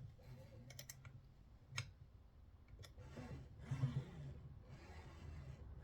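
A few faint, sharp metallic clicks and taps over a low steady hum: a small wrench working an eccentric nut on a Creality Falcon 2 laser engraver's carriage wheel to take up slop. There is a quick run of clicks under a second in, then single clicks near two and three seconds.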